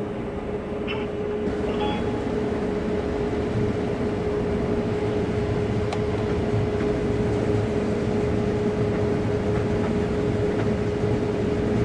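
Case IH combine running steadily, its engine and machinery noise held even with one steady tone over it.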